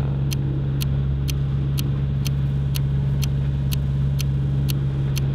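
Sailboat's inboard engine running steadily with a low drone. Evenly spaced sharp ticks come over it about twice a second.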